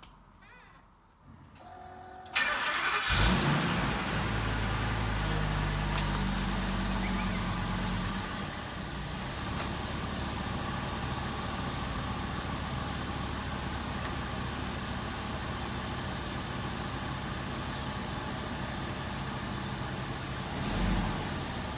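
RV engine starting about two seconds in, running faster for the first few seconds, then settling to a steady idle.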